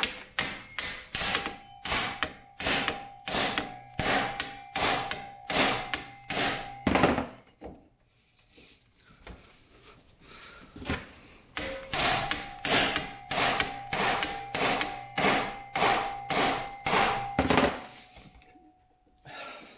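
Hammer striking a hand impact driver set on the engine-case screws of a Honda XR100, about two sharp metallic blows a second with a ringing tone after each. They come in two runs with a few quiet seconds between them, as the tool is moved to the next screw. The blows are meant to shock corroded, seized screws loose.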